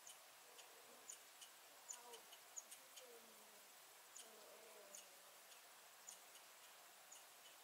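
Quiet outdoor background with faint, short high-pitched chirps at irregular intervals, and a faint wavering low tone for a few seconds in the first half.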